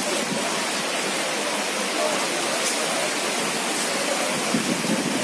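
Fast-flowing muddy floodwater rushing past in a steady, even torrent.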